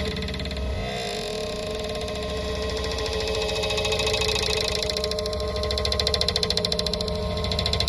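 Granular-synthesis electronic music: a steady mid-pitched drone over a low hum, broken into a fast even flutter of tiny grains that grows stronger in the second half.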